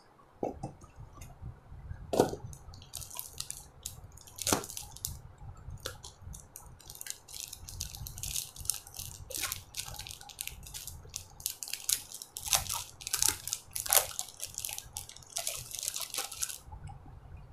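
Plastic-wrapped garment packets and cardboard boxes being handled: irregular crinkling and rustling of plastic, with a few sharper knocks, the loudest about two, four and a half and fourteen seconds in.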